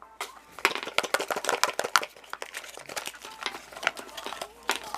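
Crinkling and rustling of a plastic wrapper, with many quick irregular clicks and crackles as small collectible packs are handled and opened.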